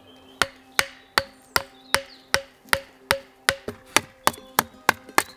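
Large hand-forged knife chopping at the end of a wooden branch, about fourteen sharp strikes at a steady two to three a second that quicken slightly near the end.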